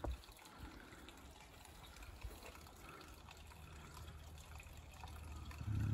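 Faint steady trickle of running water at a garden pond, with a low background hum. A short low bump comes near the end.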